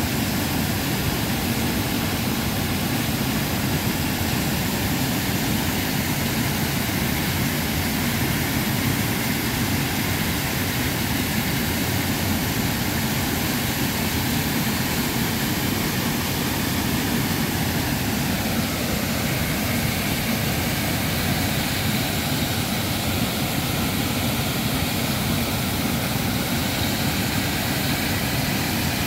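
River water rushing steadily over a flooded concrete causeway and spilling down a small rocky waterfall.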